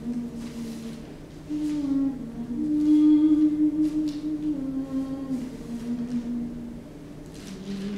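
A person humming a slow tune, holding long notes that step up and down in pitch, with a few faint rustles in the background.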